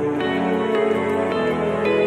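Soft, melodic background music with sustained notes and a new note or chord starting about every half second.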